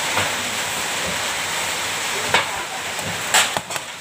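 Steady hiss, with a sharp click a little over two seconds in and a short cluster of clicks near the end, from multimeter test probes being handled against the wires of a fan-motor coil.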